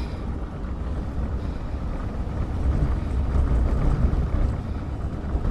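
Steady low rumble of wind and rolling noise from a loaded Quattrovelo velomobile running downhill at about 50–70 km/h in strong wind.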